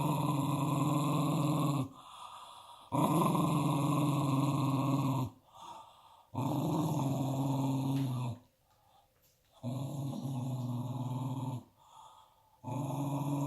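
Dog growling in long, steady rumbles of about two seconds each, five in a row, with short quieter pauses between them.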